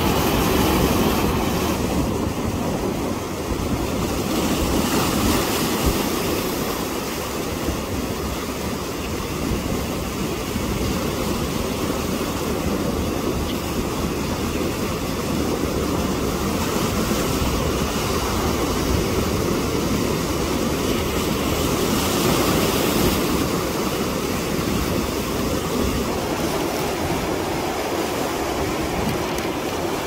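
Ocean surf breaking on a beach: a continuous rush of waves that swells louder now and then as breakers come in.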